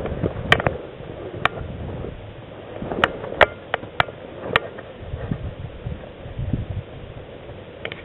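Airsoft gun shots: about eight sharp cracks, single or in quick pairs, spaced irregularly over the first five seconds, over low rustling and handling noise as the player moves through brush.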